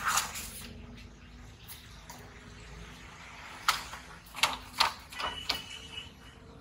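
A wire fry basket scraping and knocking against a plastic tub as cut raw potato fries are scooped into it. A brief rustle of the fries comes at the start, then about half a dozen sharp clicks and knocks a little past halfway.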